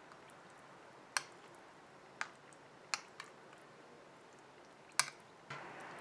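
A metal spoon stirring a wet, grainy mixture of coarse wheat flour and water in a ceramic bowl, clinking sharply against the bowl about five times at uneven intervals.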